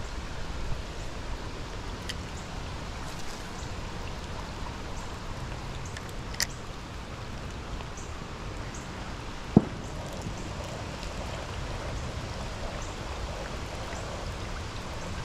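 Steady rain falling, with a few sharp drop ticks and one louder thump a little past halfway.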